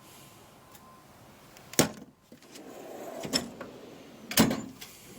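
Steel drawers of a Snap-on tool box: a sharp clack about two seconds in, then a drawer rolling along its slides and stopping with a louder clack near the end.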